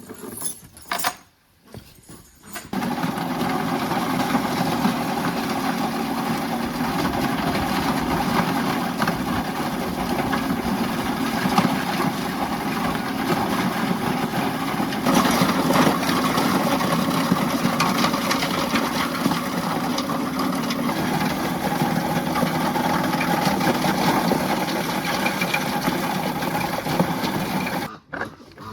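A motor-driven machine running steadily with a low hum, starting abruptly a couple of seconds in and cutting off just before the end.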